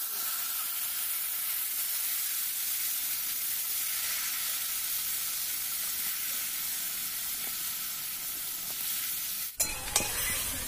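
Marinated chicken sizzling steadily in hot oil in a kadai. Near the end the sound cuts to a few sharp clicks of a spatula against the pan as the chicken is stirred.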